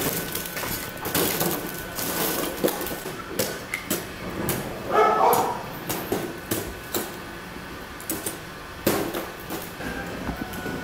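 Irregular knocks and clinks of charcoal and metal in a steel charcoal grill, with one short animal call about five seconds in.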